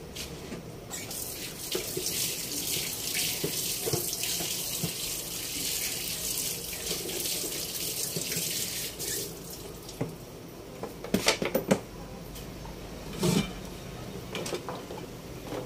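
A steady rush of water that starts about a second in and stops fairly suddenly after about eight seconds, followed by a few light knocks and clinks.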